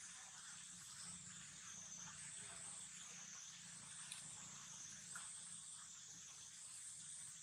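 Faint, high-pitched insect chorus droning steadily and wavering slowly in pitch, with a low background hum and a couple of faint clicks.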